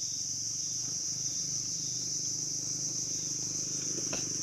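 Steady high-pitched chorus of insects trilling, with a faint click about four seconds in.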